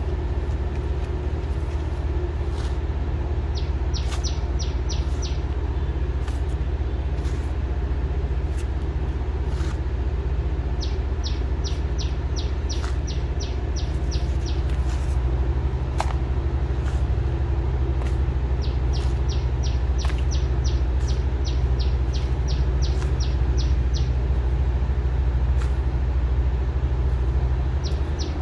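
A steady low mechanical drone, a little louder from about halfway on, with four bursts of rapid high chirps and a few scattered clicks.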